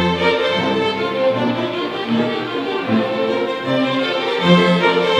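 A small string ensemble of violins and cellos playing a piece together live, the violins above long, low held notes.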